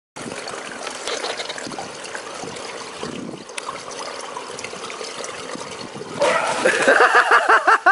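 Swimming-pool water trickling and lapping, then a sudden loud splash as a swimmer bursts up out of the water about six seconds in. This is followed by loud, rapid, repeated voice sounds, about five a second.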